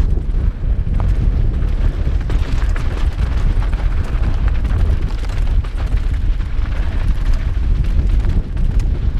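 Wind buffeting a helmet-mounted GoPro microphone on a fast mountain-bike descent: a loud, steady low rumble over the tyres crunching through loose dirt and gravel. Frequent small clicks and knocks come from stones and the bike.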